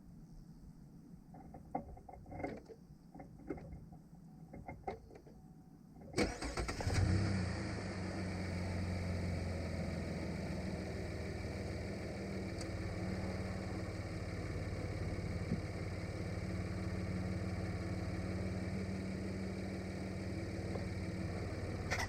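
A 2017 Chevy Colorado's engine cranks and catches about six seconds in, flares briefly, then settles into a steady idle: it starts on its newly replaced battery cable. Before it starts there are a few light clicks and knocks.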